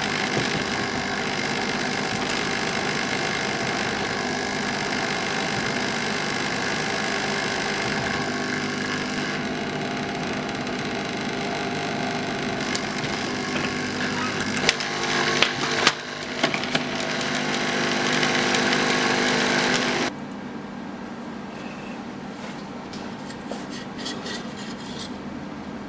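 Hot air rework station blowing steadily as it heats photoresist dry film onto a copper-clad board, a broad rushing hiss with a steady hum under it and a few sharp clicks near the middle. The blowing stops abruptly about three-quarters of the way through, leaving a quieter steady hum.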